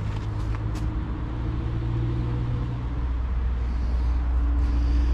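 Road traffic on the surrounding roundabout, led by a heavy vehicle's engine running low and steady. Its pitch drops about three seconds in, and it grows louder toward the end.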